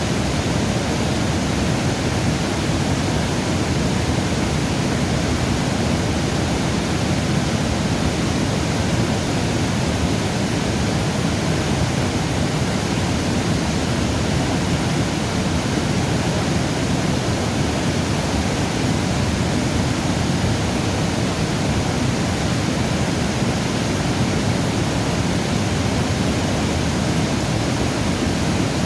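Steady rushing water, an even, unbroken noise that does not change.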